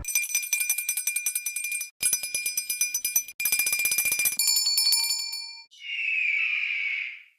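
A run of short cartoon sound effects: three quick bursts of rapid bell trilling with brief gaps between them, a shorter ring that fades out, and then a breathy whistling hiss near the end.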